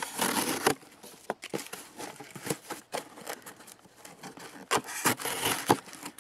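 An LT Wright Coyote, a small D2 steel fixed-blade knife, slicing through a cardboard box: a scratchy rasp of blade through cardboard in the first second, scattered ticks, and another rasping stretch near the end.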